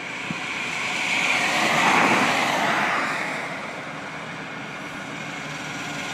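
Highway traffic passing: cars going by with a swell of road noise that peaks about two seconds in and fades, then a three-wheeled auto-rickshaw approaching, growing louder near the end.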